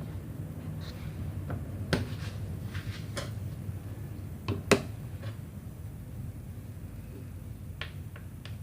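Kitchen handling sounds: a few scattered light knocks and clicks of dishes or utensils, the sharpest about four and a half seconds in, over a low steady hum.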